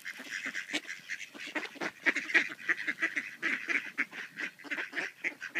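A flock of mallards quacking, many short overlapping calls several a second.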